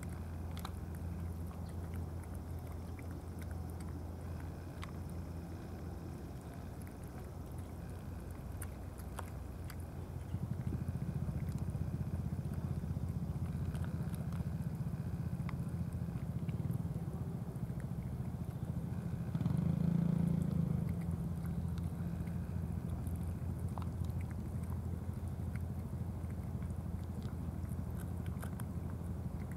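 Cats chewing and smacking on wet cat food, faint scattered clicks of eating, over a steady low mechanical hum that grows louder about a third of the way in and swells briefly about two-thirds of the way through.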